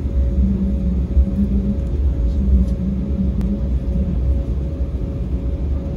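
Cabin noise of an Embraer E195 jet taxiing: a steady low rumble from the idling turbofans and rolling wheels, with a faint steady whine above it.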